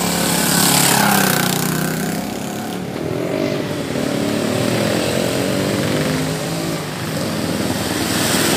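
A small petrol engine running, its whine rising and falling in pitch. It is loudest about a second in and again near the end.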